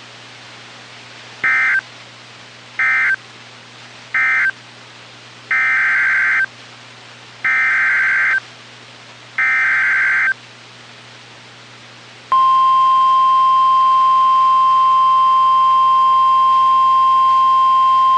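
NOAA Weather Radio Emergency Alert System data signal: three short end-of-message bursts close the previous warning, then three longer SAME header bursts open the next one. About twelve seconds in, the steady single-pitch 1050 Hz weather radio alert tone begins and holds, louder than the bursts.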